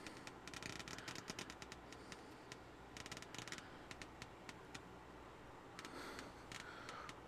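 Faint, irregular crackling and popping in clusters of small clicks, the snap, crackle and pop noise fault of a Marantz 2500 receiver, over a faint steady low hum.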